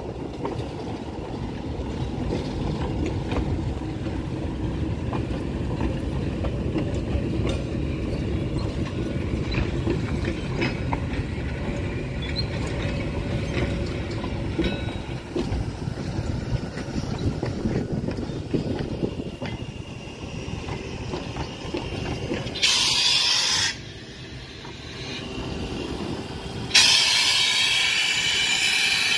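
Narrow-gauge train carriages rolling past with a low rumble and scattered wheel clicks. A steam locomotive follows, giving a short blast of hissing steam near the end, then a loud, steady hiss of steam blowing out low by its wheels.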